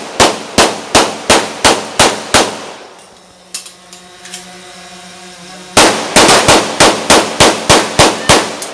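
Rapid strings of gunshots at close range: about seven shots at roughly three a second, a pause of about three seconds with a faint steady hum, then a faster string of about a dozen shots.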